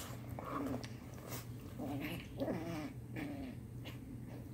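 Pets play-growling as they wrestle: several short growls, one sliding down in pitch about two and a half seconds in.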